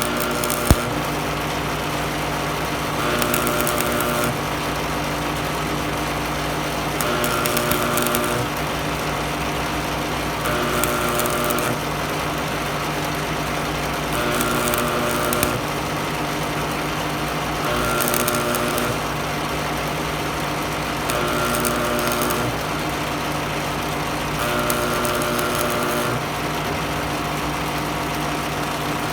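Miller Thunderbolt 250 buzz-box stick welder: a steady hum, with eight short bursts of arc buzz and crackle, each about a second long and coming every three to four seconds, as short welds are run on thin metal.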